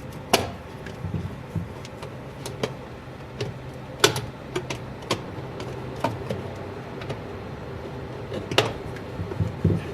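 Scattered sharp clicks and taps of hands and tools on the cooler's thermostat housing as the thermostat and its plate are fitted back in, over a steady low hum.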